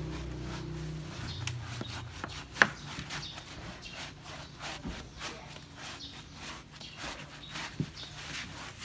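A hand brush scrubbing a dog's wet, soapy fur in repeated short rubbing strokes. A single sharp knock comes about two and a half seconds in.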